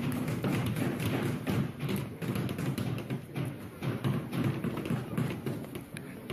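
A hammer tapping a nail into a small wooden kit piece: a run of uneven taps and knocks.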